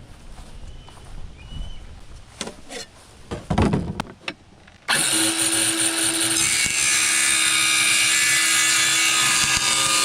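Scattered clicks and knocks of parts and tools being handled on a workbench. About five seconds in, a power tool starts running steadily with a held tone, working through wood.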